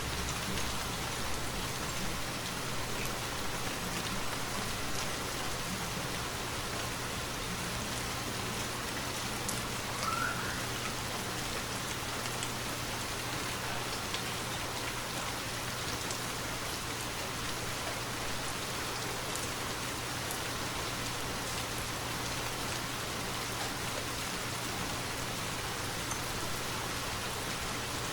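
Steady rainfall with scattered individual raindrops pattering. A faint, short rising chirp comes about ten seconds in.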